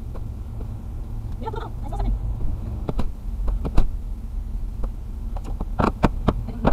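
Dash-cam cabin audio of a car in traffic: a steady low rumble, a few muffled words about a second and a half in, and several sharp knocks, the loudest a little before four seconds in and a cluster near the end.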